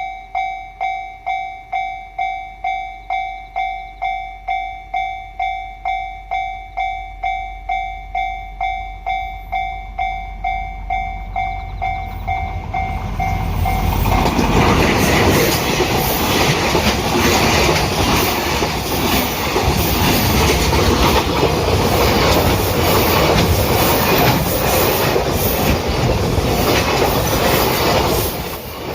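Japanese level-crossing alarm bell ringing steadily, about two dings a second. About halfway through, a freight train hauled by a DF200 diesel-electric locomotive arrives and passes over the crossing, and the loud rumble and clatter of the locomotive and wagons drowns out the bell.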